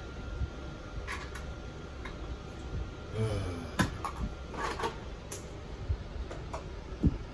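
Plastic toy food being handled in a bin: scattered light clicks and knocks, the sharpest about four seconds in and near the end.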